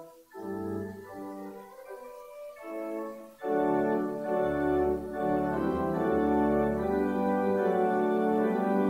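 Organ music in slow, held chords, thin and quiet at first, then swelling much fuller with a deep bass about three and a half seconds in.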